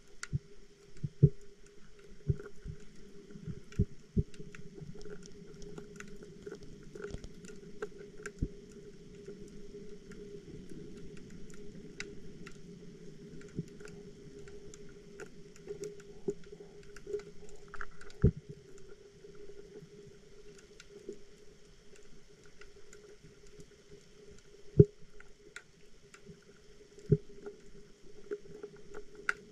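Underwater sound through a GoPro's waterproof housing: a steady low hum with scattered clicks and knocks, a few of them sharp and loud.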